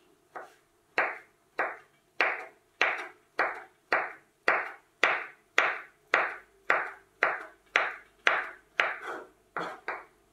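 Kitchen knife dicing cooked carrot on a wooden cutting board: a steady run of chops, nearly two a second, each with a short ringing tail.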